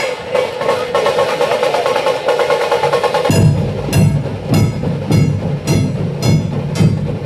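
Procession drumming: a fast, dense drum roll, then from about three seconds in heavy low drum beats at about two a second, each with a sharp high stroke over it.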